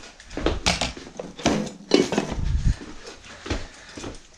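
Small hard tools or parts being handled: a run of light knocks, clicks and clatter, several a second at times.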